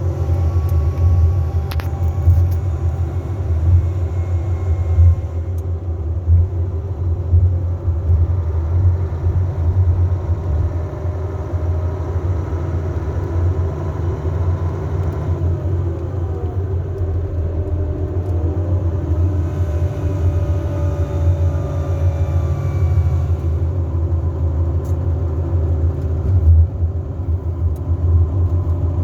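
Mercedes-Benz Travego 15 SHD coach's engine and retarder on a downhill descent: a steady low drone with faint whining tones over it. About halfway through, one whining tone falls while another rises.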